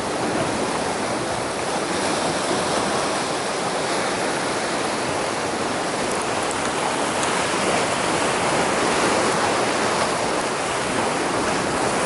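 Sea surf washing and breaking over the rocks just below, a steady rush of churning water.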